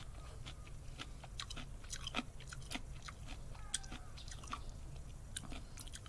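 A person chewing a mouthful of leafy miso soup close to the microphone, with scattered small clicks and crunches.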